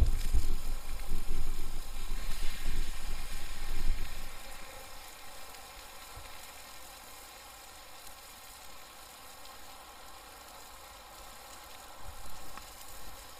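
Steak burgers and eggs sizzling in small frying pans over a wood campfire, a steady hiss. A louder low rumble fills the first four seconds, then falls away.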